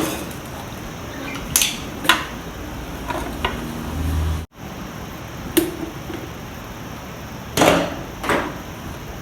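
Sharp knocks and clatters of hard motorcycle parts and tools being handled, six or so spread out, with a short low hum just before the sound cuts off suddenly about four and a half seconds in.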